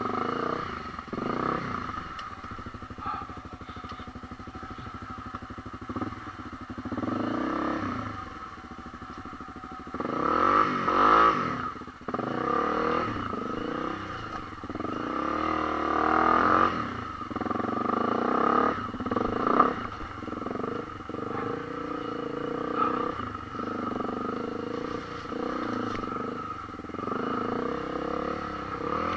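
Honda CRF250L dual-sport motorcycle's single-cylinder four-stroke engine, ridden slowly over rocky, muddy trail, revving up and easing off again and again; the strongest burst of throttle comes about ten seconds in.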